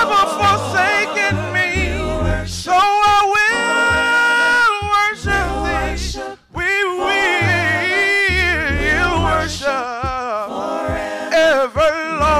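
Gospel praise-and-worship singing: a group of singers on microphones holding long notes with vibrato, with low bass notes underneath. The music breaks off for a moment about six seconds in.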